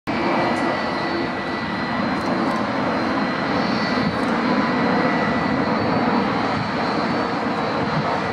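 Lufthansa Airbus A340's four jet engines on short final and in the landing flare over the runway, just before touchdown: steady jet noise with a thin high whine. It starts abruptly at a cut.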